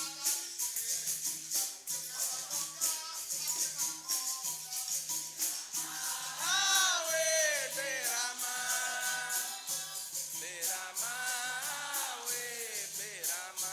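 Capoeira roda music: a sung line over a steady rhythm of berimbau and the jingling of a pandeiro. The voices swell in phrases about halfway through and again near the end.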